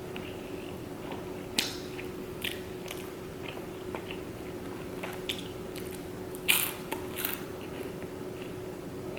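Close-miked chewing and biting of fried Chinese takeout food, with several short, sharp crunches and clicks, the loudest about six and a half seconds in. A steady faint hum runs underneath.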